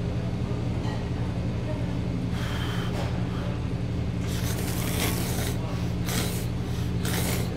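A person slurping up a long forkful of ramen noodles in about four noisy sucks, starting about two seconds in, the longest about four seconds in. A steady low hum runs underneath.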